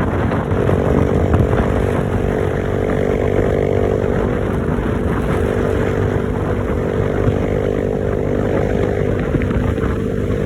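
An engine running steadily, its pitched hum settling in about half a second in over a constant rumble.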